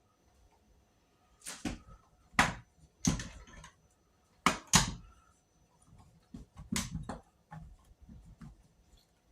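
Kirby vacuum parts being handled and fitted together by hand: a series of irregular knocks and clicks, loudest a few seconds in.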